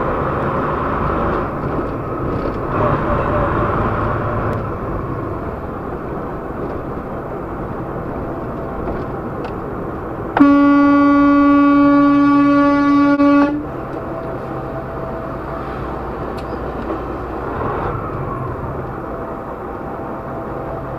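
Semi truck's diesel engine and road noise running steadily in the cab. About halfway through, a truck horn sounds one long, loud blast of about three seconds, a warning at a tractor-trailer pulling out with no turn signal.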